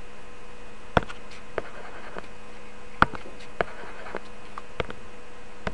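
Stylus tapping and scratching on a tablet while handwriting: a handful of sharp clicks, the loudest about a second and three seconds in, with faint scratchy strokes between, over a faint steady electrical hum.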